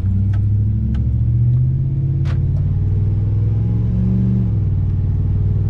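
Engine of an old Dodge pickup with a 5.9-litre engine, heard from the cab, running under load while pulling a heavy power washer. Its pitch rises and then drops back about four and a half seconds in.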